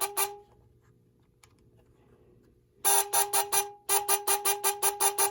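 Buzzer of a 1948 S. B. Mfg. toy telegraph practice set being keyed in short rapid beeps, about five a second. A run ends just at the start; after a pause of about two and a half seconds, two longer runs start about three seconds in.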